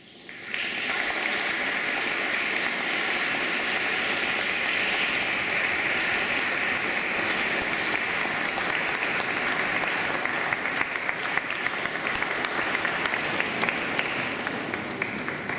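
Audience applauding. The clapping starts suddenly about half a second in, holds steady, and eases off slightly near the end.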